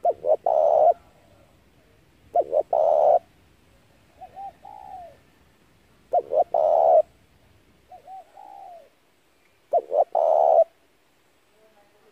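Spotted dove cooing. The call repeats four times, about every three and a half seconds: two short notes, then a longer one. Two softer, wavering coos come in between.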